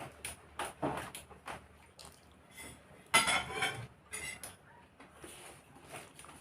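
Cutlery clicking and scraping against a plate during a meal: a run of light clicks in the first second and a half, then one louder, longer scraping burst about three seconds in.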